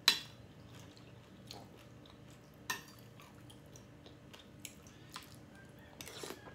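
Close-up eating sounds: chewing with small crunches from crispy fried shrimp, and a metal spoon clicking sharply against a glass dish at the start and again a few seconds in. Near the end a spoonful of soup is taken with a short slurp.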